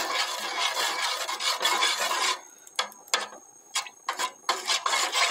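Metal spoon stirring and scraping around the bottom of a metal pot of milk, a steady rasping swish. About two seconds in the stirring pauses for roughly two seconds, broken by a few light clicks, then starts again.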